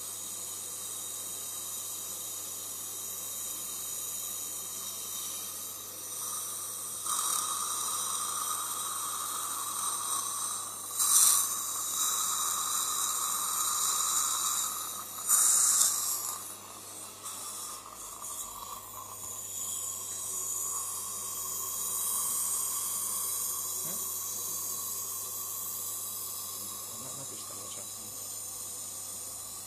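Dental suction tube in the patient's mouth hissing steadily as it draws air and fluid. It turns louder from about 7 to 17 seconds in, with two brief loud surges about 11 and 15 seconds in.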